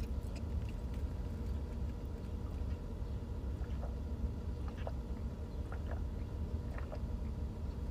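Steady low rumble of a car heard from inside the cabin, with a few faint small clicks.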